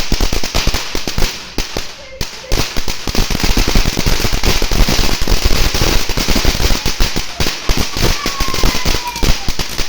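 A run of firecrackers going off in a rapid, continuous crackle of bangs, with a brief lull about two seconds in, fading out near the end.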